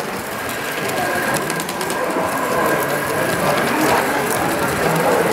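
A model steam locomotive running along its metal track, over the steady murmur of people talking in a hall.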